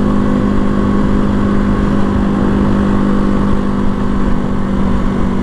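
Janus Phoenix 250's single-cylinder engine running at a steady cruising speed, heard from the rider's seat. Wind and road noise rumble underneath.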